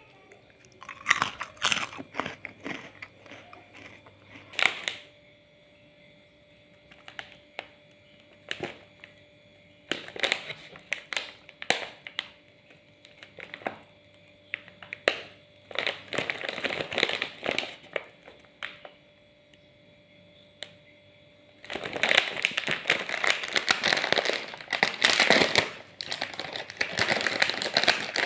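Plastic snack packets crinkling as they are handled, in scattered short bursts, then crinkling steadily through the last several seconds.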